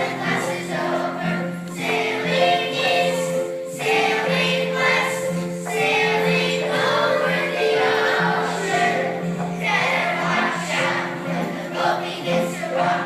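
A third-grade children's class singing an Appalachian folk song together as a choir, in continuous sung phrases with held notes.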